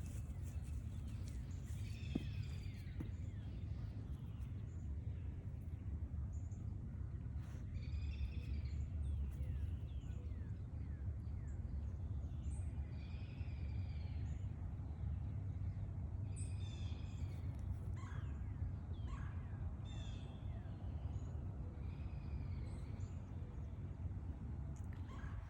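A bird calling over and over, a few seconds apart, over a steady low rumble.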